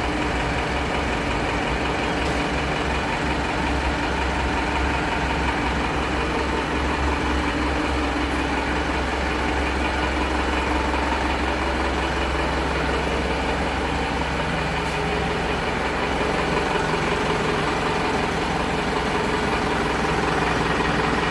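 Tata 407 light truck's diesel engine idling steadily.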